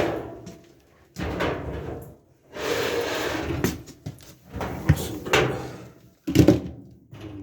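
Metal cabinet parts of an LG dryer being handled during disassembly: a clatter that dies away at the start, then scraping and sliding, and a few knocks and clunks, the loudest about six and a half seconds in.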